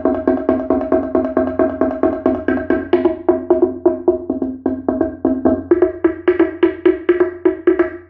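Bamboo teponaztli, a two-tongued Mesoamerican slit drum, struck with two mallets in a fast, even run of about five strokes a second, each stroke ringing with a hollow wooden tone. Its lower pitch leads at first, and its higher pitch comes to the fore about halfway through.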